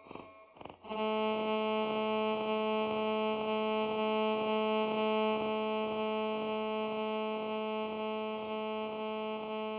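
A single sustained musical note with a rich, reedy tone starts after a brief choppy stutter about a second in. It holds steady at one pitch with a faint regular pulse and eases off slightly near the end.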